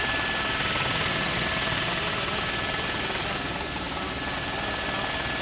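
Helicopter turbine engine and rotor running steadily, heard from inside the cabin: an even rushing noise with a constant high whine.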